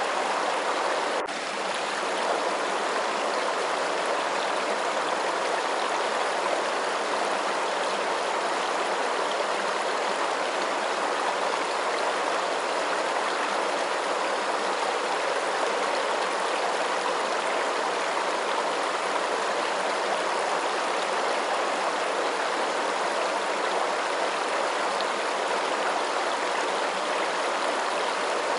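Steady rushing of running water, an even, unchanging wash of sound, with a brief dropout about a second in.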